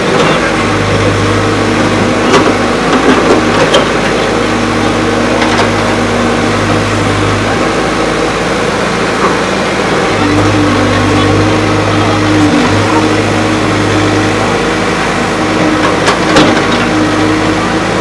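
CASE 770 EX backhoe loader's diesel engine running as the backhoe digs, its low hum strengthening for several seconds at a time, twice. A few sharp knocks cut in, a cluster in the first few seconds and one about two seconds from the end.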